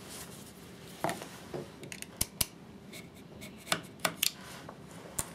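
Screwdriver tip scraping and clicking inside the plastic carbon-brush holder of an electric chainsaw motor, a handful of sharp, irregular clicks and scrapes, more of them from about two seconds in. The holder is being scraped clean so the brushes slide freely, because sticking brushes are suspected.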